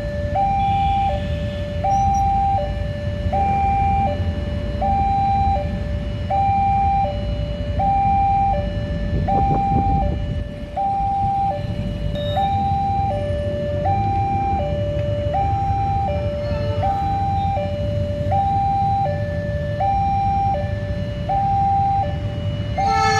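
Railway level-crossing warning alarm sounding continuously, an electronic two-tone signal alternating between a higher and a lower pitch about every three-quarters of a second, warning of an approaching train. Underneath is the low rumble of waiting motorcycle and road traffic engines, and a locomotive horn starts just at the end.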